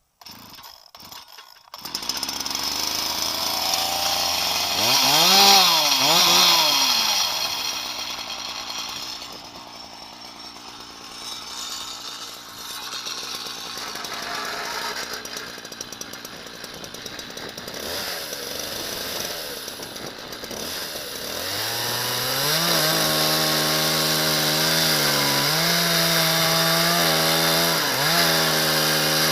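Husqvarna 372 XPG two-stroke chainsaw, fitted with a ripping chain in a chainsaw mill: it is blipped twice, settles back to idle, then from about three-quarters of the way in runs steadily at full throttle, its pitch sagging slightly a couple of times.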